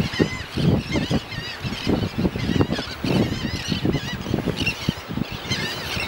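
A flock of terns calling, with many short, harsh, overlapping cries that bend up and down in pitch, over an irregular low rumble.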